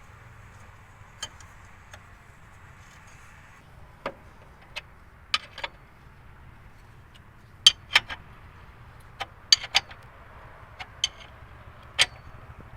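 Irregular sharp metallic clinks and taps, about sixteen of them spread unevenly and loudest in the second half, as tools and metal parts are handled in a truck repair workshop, over a steady low hum.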